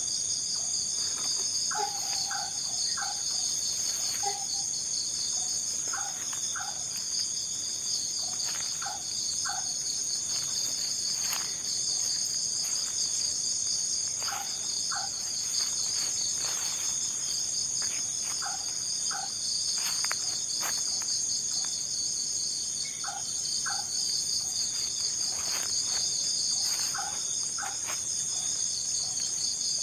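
Dense chorus of crickets and other insects, a steady high-pitched trill that never lets up, with short lower chirps repeating every second or two over it.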